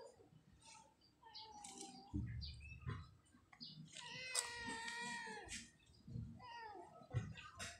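Kitten meowing: a short meow about a second in, a longer drawn-out meow around the middle, and a short falling meow near the end.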